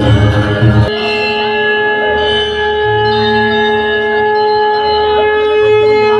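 Music. A busy passage with a beat breaks off about a second in, and long held notes with a bell-like ring follow over a soft low pulse.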